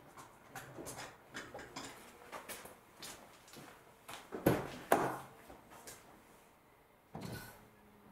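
A run of light clicks and knocks, then two louder knocks about halfway through and another near the end: a car door being opened and shut and someone handling things in the car, before the engine is started.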